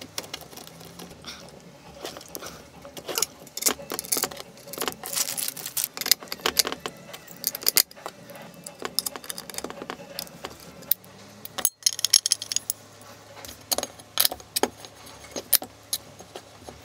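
Irregular clicks and metallic clinks of small hand tools and hardware: a hex key and spanner tightening machine screws and nuts that hold Delrin V-wheels to a birch plywood plate, with small parts picked up and set down on a wooden workbench.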